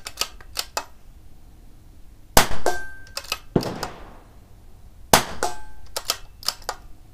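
CZ 457 .22LR bolt-action rifle fired twice, about three seconds apart, unsuppressed and with a muzzle brake. Light metallic clicks of the bolt being worked come before and between the shots.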